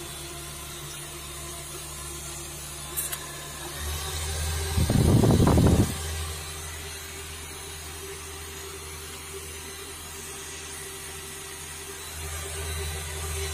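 A 12-volt twin-head dashboard car fan running with a steady whirring hum. About five seconds in, a louder rumbling swell lasts a second or so.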